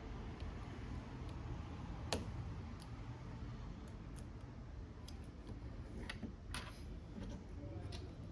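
Small sharp clicks and taps of hand tools and parts being handled while a smartphone is taken apart, scattered irregularly with the loudest about two seconds in, over a faint steady low hum.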